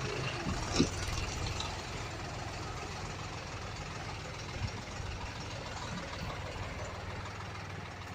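Heavy machinery engine running steadily at low revs, with a brief knock about a second in and another about halfway through.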